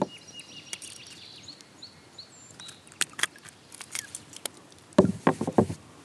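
Faint bird chirps, then sharp clicks and a brief cluster of knocks about five seconds in: metal pliers and a topwater lure being worked free of a freshly netted smallmouth bass in the landing net.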